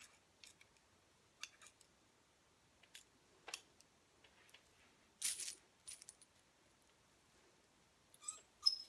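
Faint, scattered light clicks and clinks, about a dozen, with a slightly longer bright one a little past halfway, from handling a clip-style curling iron while winding a section of hair.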